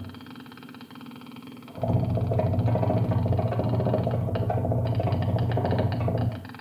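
Improvised experimental music for trombone and electronics: a low, steady, engine-like drone with many overtones. It is quieter for the first couple of seconds, comes back in full about two seconds in, carries quick flickering clicks in the upper range toward the end, and falls away just before the end.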